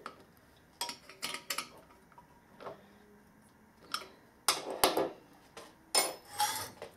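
Scattered metallic clinks and knocks, about eight of them, from metal tools and parts being handled and set down on a workbench.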